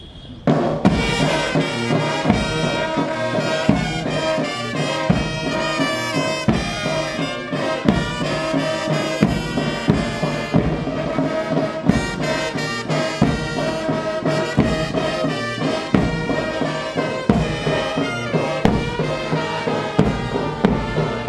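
Military brass band playing: trumpets and trombones sound the tune over a steady beat of bass and snare drums.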